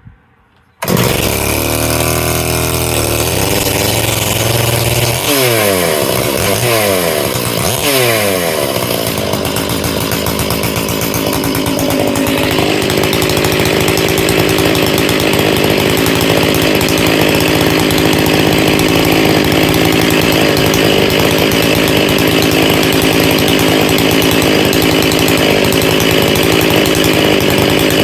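Large two-stroke chainsaw coming in suddenly about a second in and being revved up and down in several quick blips. From about twelve seconds in it runs steadily at high speed.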